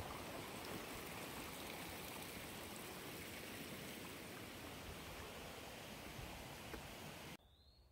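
A small rocky stream rushing steadily over stones, cutting off suddenly near the end.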